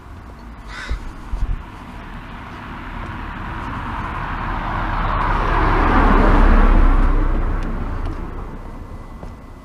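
A car passing on the road: its tyre and engine noise swells as it approaches, is loudest about six and a half seconds in, then fades away. A bird calls once about a second in.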